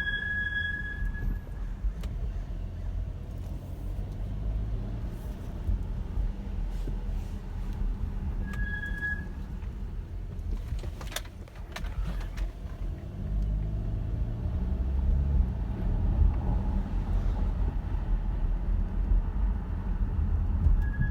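Car's brakes squealing: a high, steady, single-pitched squeal for about a second at the start, again briefly about eight and a half seconds in, and again at the very end, each time the brakes are applied. Between squeals there is a steady low rumble of the car running on the road.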